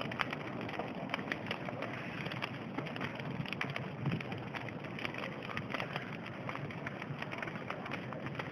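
Campfire burning: a steady rushing hiss broken by frequent sharp crackles and pops.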